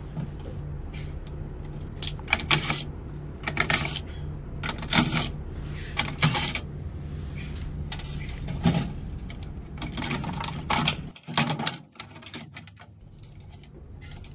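Scattered sharp metallic clicks and rattles from hand tools and screws as a washing machine's control board is unscrewed and lifted out of its plastic holder, over a steady low hum.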